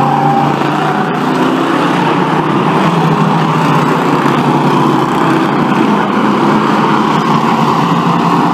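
Bomber-class stock cars racing past on a paved oval: several engines running hard at once, a steady loud blend of engine notes as the pack goes through the turn.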